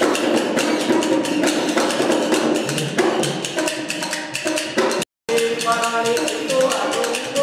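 Live folk music with quick, dense percussion strikes over sustained melodic tones, cutting out for a split second about five seconds in.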